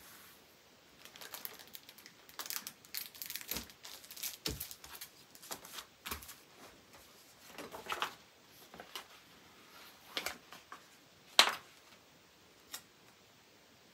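A paper print and its card backing being handled: irregular rustling and crinkling of paper, then a few separate sharp clicks and taps, the loudest about eleven seconds in.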